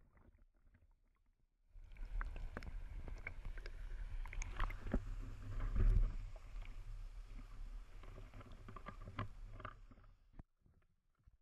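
Rumbling and knocking noise on the microphone of a camera being swung about, with many sharp clicks over a low rumble. It starts suddenly about two seconds in and cuts off suddenly near the end.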